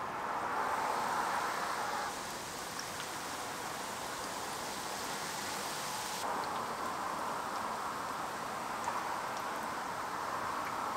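Battered food sizzling steadily in hot deep-frying oil, with scattered small pops; the sizzle shifts abruptly twice.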